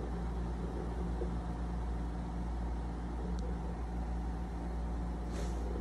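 A steady low mechanical hum with no change in pitch or level, and a faint tick about halfway through.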